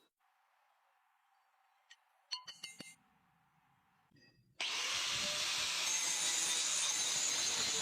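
A few light metallic clinks with a brief ring, then a couple of seconds later a power grinder starts abruptly and runs steadily against the steel.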